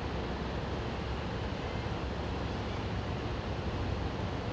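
Steady low rumble of outdoor harbour ambience at a ferry quay, even throughout with no distinct events.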